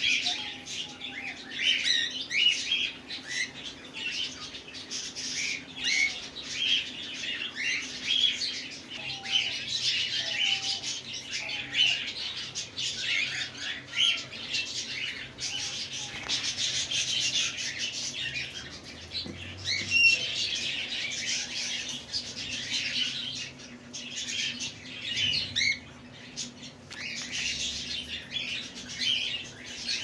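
Many cockatiels chirping and calling at once, a dense, continuous chatter of short overlapping chirps, over a faint steady hum.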